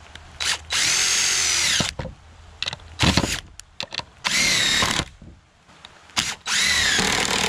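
DeWalt cordless driver driving screws into a wooden block, in three runs, its motor whine rising at the start of each run and falling as it stops. Short clicks and a knock come between the runs.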